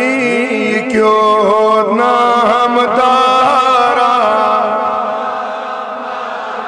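A man's solo voice chanting a naat, drawing out one long, wavering melismatic note that slowly fades near the end.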